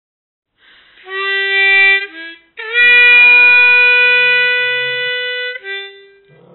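Harmonica playing a few held notes: a short phrase about a second in, then one long higher note held for about three seconds that fades near its end, and a brief lower note after it.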